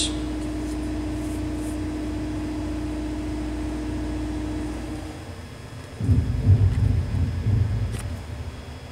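Steady mechanical room hum with one low steady tone, the same hum that lies under the narration. It cuts off about five seconds in. About a second later a low rumble comes in for roughly two seconds and fades.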